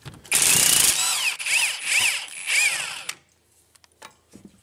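Cut-off tool cutting through a seized tie rod jam nut, its motor pitch rising and falling as it bogs under load, stopping about three seconds in. A few faint clicks follow as the vise grips are handled.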